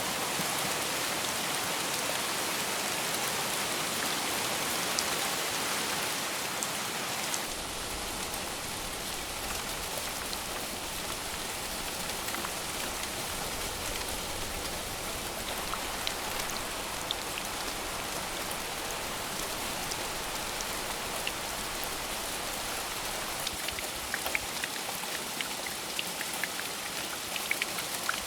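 Steady, dense rainfall pattering on surfaces, with single drops standing out as sharp ticks in the last few seconds.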